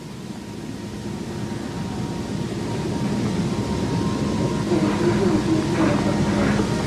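Steady mechanical drone of running machinery, an engine-like hum that grows gradually louder.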